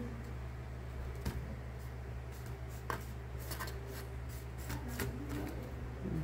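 Scattered light clicks and taps of kitchen handling over a steady low hum.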